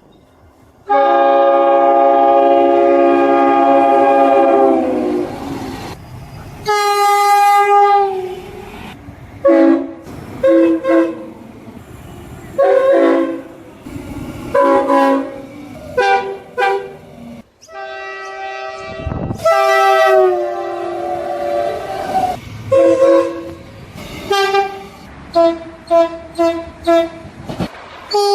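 Train horns sounding blast after blast from several trains, cut back to back: a long chord blast of about four seconds, a higher-pitched horn around seven seconds in, then many short toots and longer blasts at different pitches. A rumble of passing train noise runs between the blasts.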